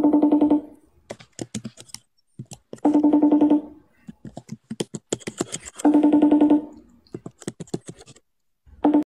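Ringback tone of an outgoing phone call, a short buzzing ring repeating about every three seconds while the call waits to be answered, with light clicks in between.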